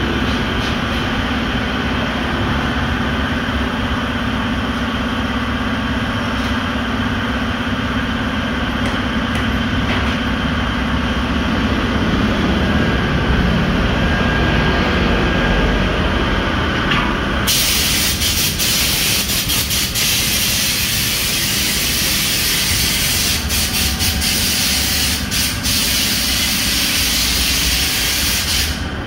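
Tyre-shop machinery running with a steady hum. About two-thirds of the way in, a loud, even hiss of compressed air starts, runs for about eleven seconds and cuts off suddenly near the end.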